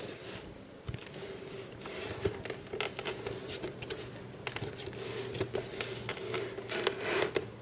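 Folding knife cutting the tape on a cardboard box, with irregular scratching and clicking as the box is handled.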